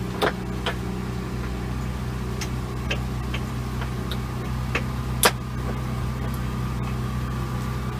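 An engine idling steadily with a low, even hum, and a few sharp clicks, the loudest about five seconds in, as the winch hook and strap are worked at the boat's bow.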